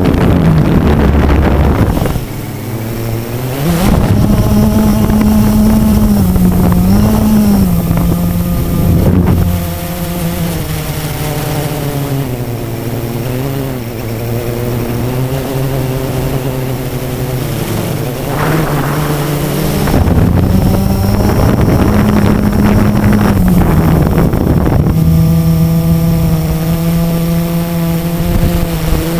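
Blade 350 QX quadcopter's four electric motors and propellers buzzing, heard up close from the onboard camera in flight. The pitch shifts as the throttle changes: it rises about four seconds in, wavers, then drops lower and quieter for roughly ten seconds before climbing back to a steady higher buzz near the end.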